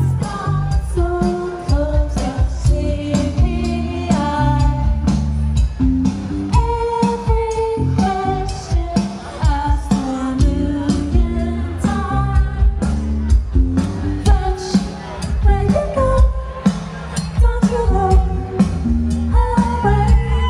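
Amplified live music: a sung melodic line over a heavy bass and a steady drum beat.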